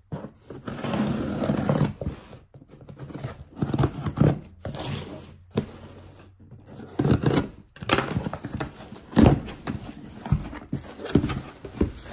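Scissors cutting open a cardboard box, with cardboard scraping, tearing and rustling in irregular bursts and sharp clicks as the flaps are pulled apart.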